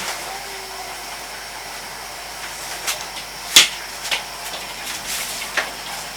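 Steady hiss of a pot of soup cooking on the stove, with a few sharp clinks; the loudest clink comes about three and a half seconds in.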